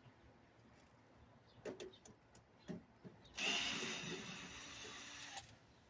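Power drill running for about two seconds, after a few short knocks of handling.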